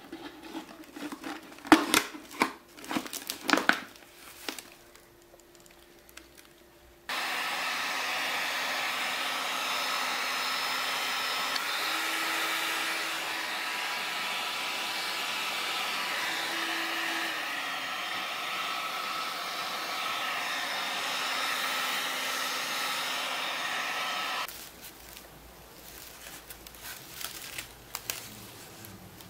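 Hot-air gun switched on about seven seconds in, blowing steadily for some seventeen seconds to heat-shrink a cut plastic bottle onto a straw broom's handle, then cut off. Before it, clicks and crinkling of the plastic bottle and straw being handled.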